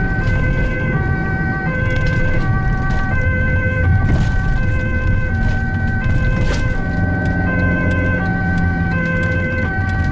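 Ambulance two-tone siren alternating between a high and a low note, heard from inside the cab over engine and road rumble.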